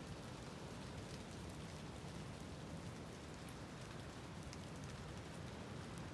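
Steady light rain falling and dripping through tree foliage, a continuous soft hiss with scattered single drops ticking.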